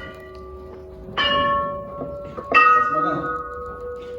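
Bells of different pitches struck one after another, roughly a second and a half apart, each ringing on and slowly fading.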